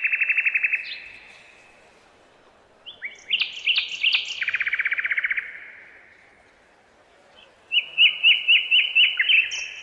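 A songbird singing three phrases of rapid trilled notes, one already going at the start, one about three seconds in and one near the end, with short pauses between.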